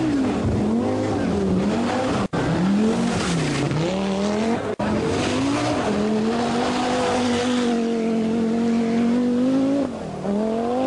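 Audi Quattro Group B rally car's turbocharged inline five-cylinder engine revving hard, its pitch climbing and dropping through the gears. Two sudden cuts break the sound about two and five seconds in, and another change comes near the end.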